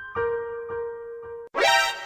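A few soft electric-piano notes, about half a second apart, cut off abruptly about one and a half seconds in by a louder, bright ringing ding with a quick upward sweep that starts to fade away.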